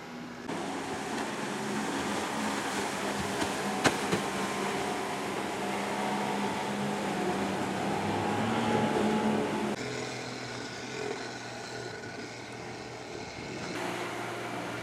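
Outboard motors of water taxis running at speed, a steady engine drone over rushing water, its pitch and level changing abruptly twice. A single sharp click about four seconds in.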